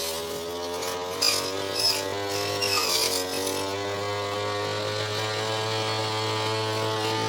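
Petrol brush cutter (grass-cutting machine) running at working speed on tall, thick grass. Its engine note dips briefly about three seconds in as the blade loads up, then holds steady. A few sharp swishing hits of the cutting head sound in the first three seconds.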